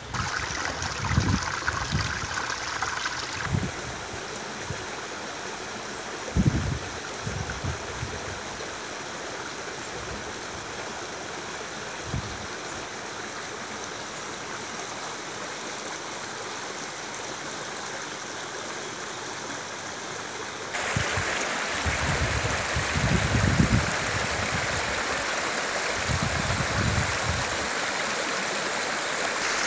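Shallow water running and babbling over stones and weeds in a small stream and river. The water gets louder about three-quarters of the way in. Now and then wind gusts rumble on the microphone.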